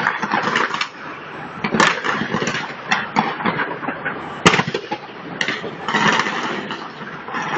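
Fireworks going off in rapid succession: a dense run of crackling and popping bursts, with one especially sharp bang about four and a half seconds in.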